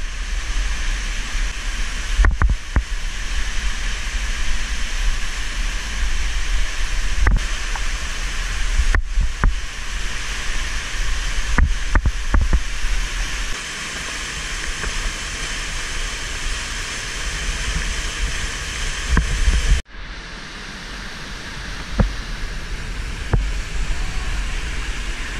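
Steady rushing of a nearby waterfall picked up on a helmet camera, with low rumble and a few short knocks from the descent against the rock. About twenty seconds in the sound cuts out for an instant, then the waterfall noise carries on a little softer.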